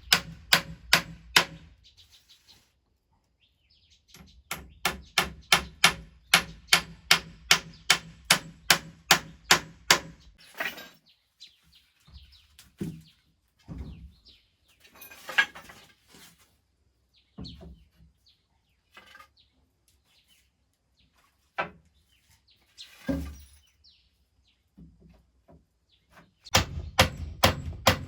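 Hammer striking nails into wood in runs of quick, even blows about three a second, stopping for long stretches between with only a few small knocks.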